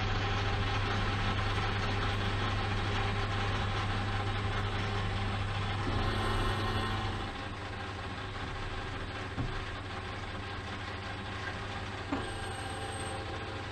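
Metal lathe running with a steady motor hum and machine noise. It gets somewhat quieter about seven seconds in, with a few light clicks near the end.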